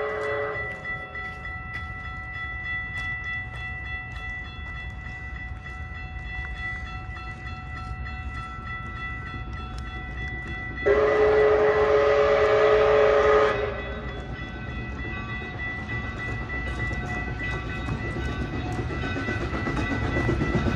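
Steam locomotive chime whistle blowing one long blast of about two and a half seconds midway, a chord of several tones, with the tail of an earlier blast just at the start. Under it runs a steady low rumble with a faint steady whine.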